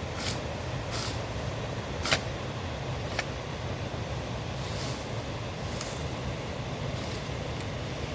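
Steady rain noise with scattered sharp ticks of drops landing, about one or two a second.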